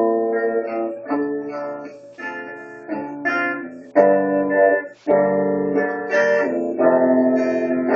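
Electric guitar playing ringing chords that change about once a second, with a brief break about five seconds in before the playing resumes.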